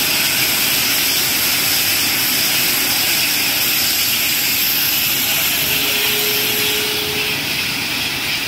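A van fully engulfed in flames, the fire burning with a steady, loud rushing hiss. It eases slightly near the end.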